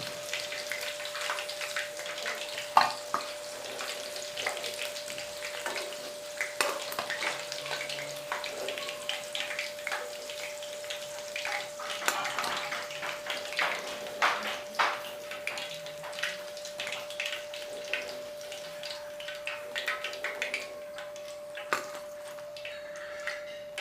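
Chicken pieces deep-frying in hot oil with a continuous sizzle, while a metal spoon clinks and scrapes against the pan as the fried pieces are lifted out. A faint steady tone runs underneath.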